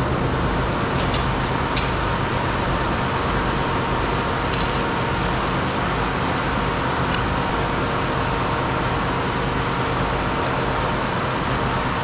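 Steady machinery hum with a few constant tones running evenly throughout, and a couple of faint ticks.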